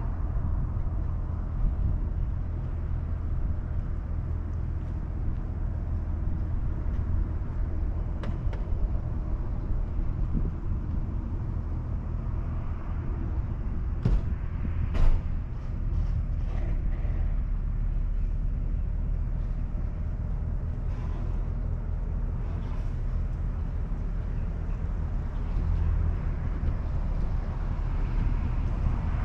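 Tow vehicle's engine running slowly and steadily as a boat trailer is backed down a launch ramp, a low drone with a few short knocks, the loudest about fifteen seconds in.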